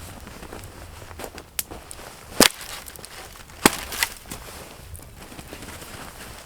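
Firewood being worked by hand: two loud, sharp cracks a little over a second apart, with a few smaller knocks around them.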